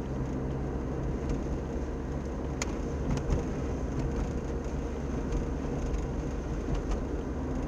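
Car driving on a wet road, heard from inside the cabin: a steady engine hum and tyre noise, with a couple of faint clicks around the middle.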